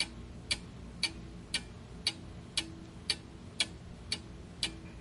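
Clock-ticking sound effect, about two sharp, even ticks a second over a faint steady hum, used as a countdown timer for answering a quiz question.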